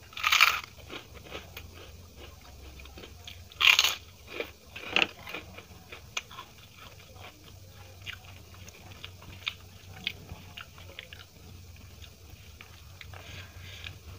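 Crisp fried papad bitten with two loud crunches in the first four seconds, then chewed with many small crackling crunches.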